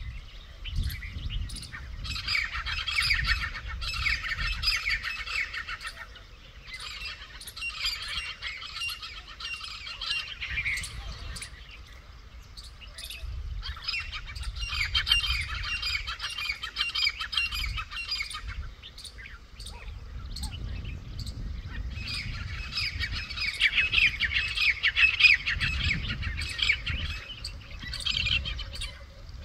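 Grey francolins calling harshly in chattering bouts of a few seconds each, with short lulls between, as rival flocks squabble over territory.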